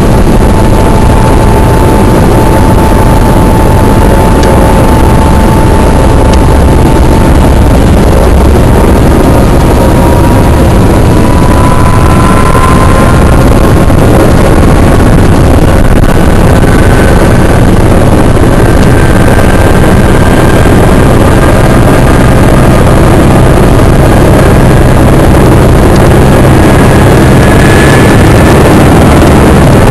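Helicopter turbine engine and rotor running loud and steady, with a whine that begins to climb slowly in pitch about a third of the way in and keeps rising, as the engine spools up.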